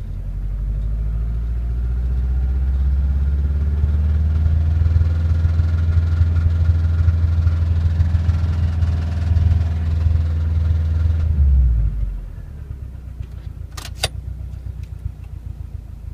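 Subaru Impreza WRX's EJ205 turbocharged flat-four engine running, which the owner presents as knocking. The engine sound builds over the first few seconds, holds steady, then drops away sharply about twelve seconds in to a low rumble. Two sharp clicks follow a couple of seconds later.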